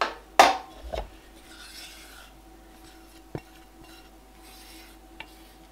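Stainless steel saucepan being picked up and handled: two sharp clanks at the start and a smaller one about a second in, then soft scraping and rubbing with a couple of light ticks.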